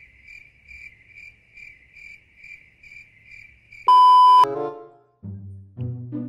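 Cricket-chirp sound effect: a steady high trill pulsing about twice a second, used as a silence gag, which stops abruptly. About four seconds in comes a loud, half-second, steady TV test-pattern beep, followed by short bouncy music notes.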